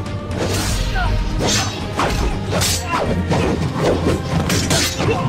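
Movie fight sound effects over action music with a steady low beat: a quick string of sharp hits, swishes and crashes as the fighters trade blows.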